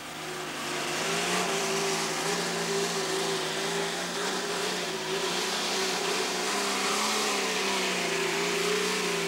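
Off-road four-wheel-drive vehicle's engine running at a steady, even pace as it drives over sand, with a background hiss of tyre and wind noise. The sound fades in over the first second.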